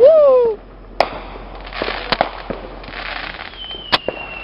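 Roman candle firing: sharp pops about a second apart, with hissing between them and a falling whistle near the end. It opens with a short, very loud pitched sound that rises and then falls.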